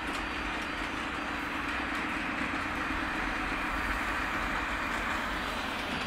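Model diesel locomotive pulling freight cars along an elevated track: a steady running rumble of the wheels and motor.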